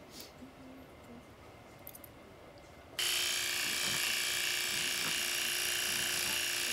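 Electric grooming clippers switched on about three seconds in, then running with a loud, steady buzz.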